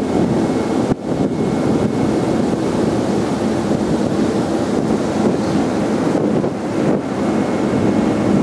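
Wind buffeting the microphone on the open deck of a passenger ferry under way, over a steady rush of water and ship noise, with a faint steady high whine.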